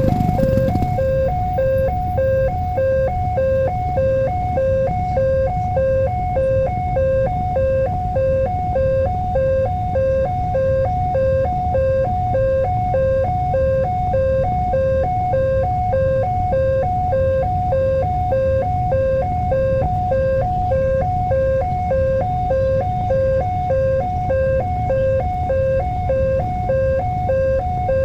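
Electronic warning alarm of an Indonesian railway level crossing, sounding two tones that alternate back and forth in a steady, even rhythm, over a continuous low rumble.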